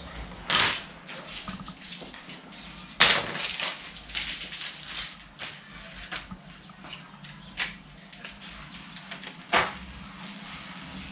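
Vinyl sticker sheets being handled and peeled during weeding: short bursts of rustling and crackling, the loudest about half a second in, at about three seconds and near the end, over a faint steady hum.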